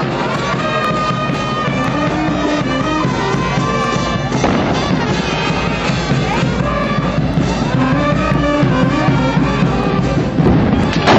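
Brass band playing a tune with a steady drum beat. A loud bang of a gunpowder musket shot comes right at the end.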